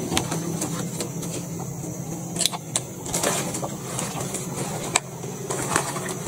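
Rustling and irregular sharp clicks of someone moving through undergrowth, with twigs and leaves underfoot and foliage brushing past, over a steady low hum.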